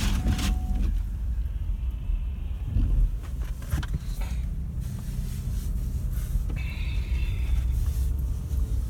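Four-wheel-drive vehicle driving through snow, heard from inside the cab: a steady low engine and road rumble with a few faint clicks and scrapes.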